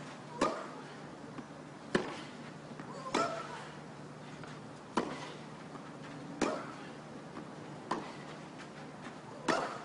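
Tennis ball struck by rackets back and forth in a baseline rally on a clay court: seven sharp hits, about one every second and a half.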